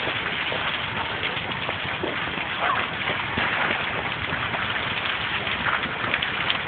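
Burning gasoline tanker truck fire: a steady, dense crackling rush, like heavy rain.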